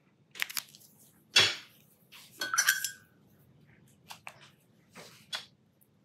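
Art materials handled on a desk: a run of small clicks and knocks, the loudest about a second and a half in, with a brief squeak near the middle.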